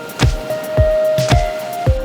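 Background music with a steady beat: deep kick drums about twice a second under held synth notes and crisp ticking percussion.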